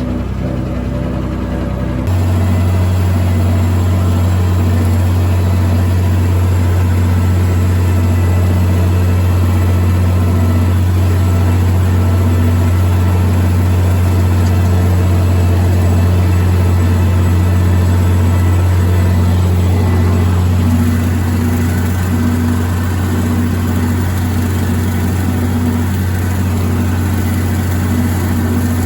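Tractor engine running steadily under the operator. It gets louder with a heavier low hum about two seconds in, then eases off a little about two-thirds of the way through.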